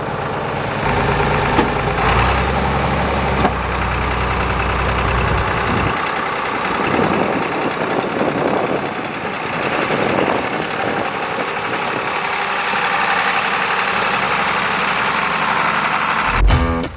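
Tractor engine running steadily. A deep drone gives way about six seconds in to a lighter, noisier running sound.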